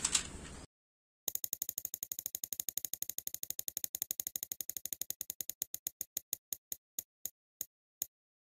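Prize-wheel spinner sound effect: a rapid run of ratchet ticks that slow steadily as the wheel winds down, ending in a few widely spaced clicks as it comes to rest.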